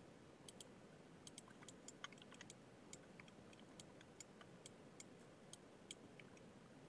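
Faint, irregular clicking of a computer mouse and keyboard over quiet room tone.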